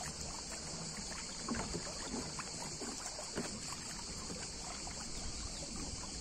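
Water lapping against the hull of a small boat: small, irregular splashes, slightly louder about a second and a half and three and a half seconds in, over a steady hiss and low rumble.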